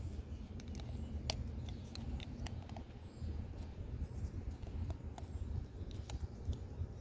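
Small, scattered plastic clicks and taps from hands working a fuel-injector wiring connector, over a steady low rumble.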